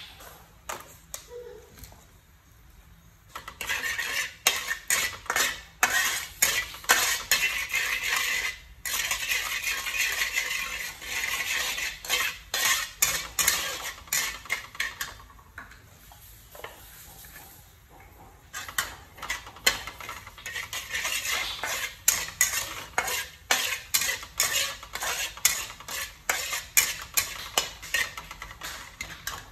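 Metal spatula scraping and knocking rapidly against a metal wok, stir-frying frog pieces. It comes in two spells, starting about three seconds in, with a pause of about three seconds midway.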